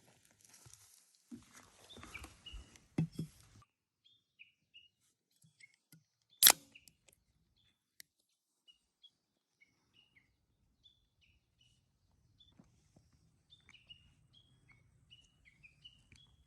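Small birds chirping in short, scattered calls, with one sharp, loud click about six and a half seconds in.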